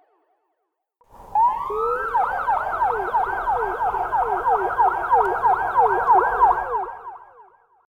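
Emergency-vehicle siren in fast yelp mode: it comes in about a second in with a rising sweep, then rapid up-and-down whoops, about three or four a second, over a low rumble, fading out near the end.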